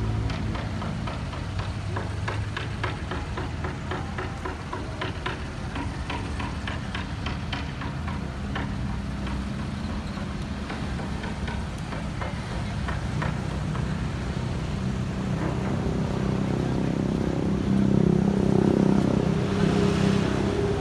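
City street traffic: vehicle engines running as they pass, with a louder vehicle going by near the end.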